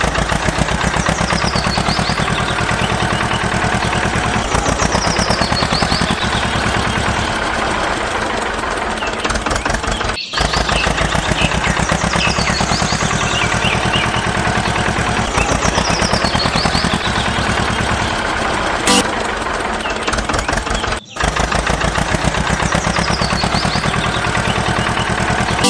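Recorded tractor engine sound: a diesel engine chugging steadily with a fast, even knock, breaking off for a moment twice and starting again. Faint high chirps recur every few seconds.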